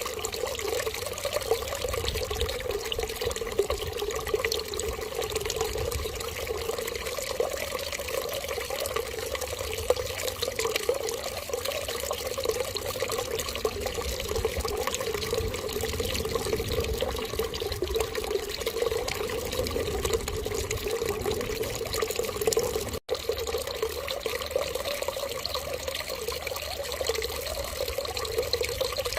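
Steady stream of running water, without a break except for a momentary cut about 23 seconds in.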